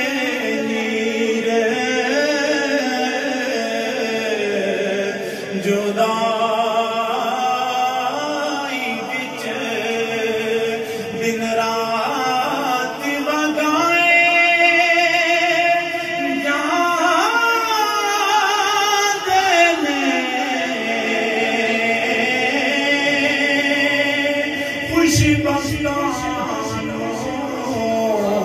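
A man singing a devotional chant, drawing out long notes that waver up and down in pitch.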